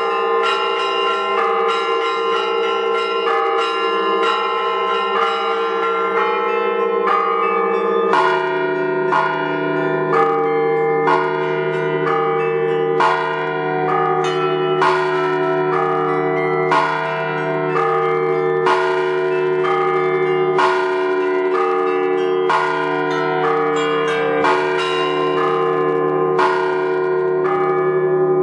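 Russian-style bell ringing on a belfry of many bells: small bells strike in a quick pattern over sustained larger bells. About eight seconds in a deeper bell takes over the bass, and loud strokes come about every two seconds.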